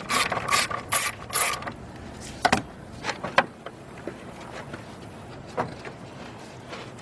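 Socket ratchet clicking through about four quick strokes, then a few separate light clicks and knocks as it is handled.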